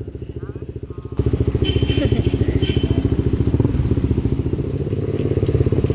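Motorcycle engine running while riding, a steady fast pulsing that becomes noticeably louder about a second in, with a couple of short high-pitched tones about two seconds in.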